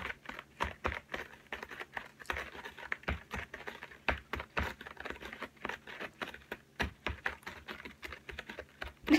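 A cat scratching a corrugated cardboard scratching pad with her front claws: a quick, irregular run of short scratchy strokes, several a second.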